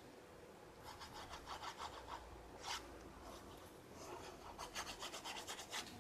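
Fine-tip plastic glue bottle's nozzle scratching across the back of a paper square as glue is laid on, in two faint runs of quick rasping strokes, one about a second in and one near the end.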